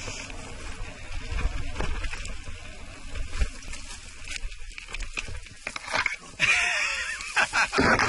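Mountain bike rolling down a loose gravel singletrack, with tyres crunching, the bike rattling and wind rumbling on the camera's microphone. About six seconds in, stiff scrub branches start scraping loudly across the helmet camera as the rider pushes through the bushes, getting the camera snagged.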